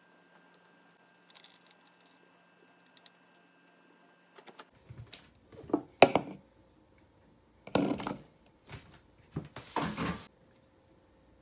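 Hands squeezing water out of firm tofu in a plastic bowl: faint crackling at first, then several loud, short, wet squelches and splashes as the tofu is wrung hard, with the bowl being handled.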